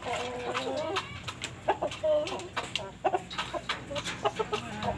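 Chickens clucking in short, repeated calls, with sharp clicks among them.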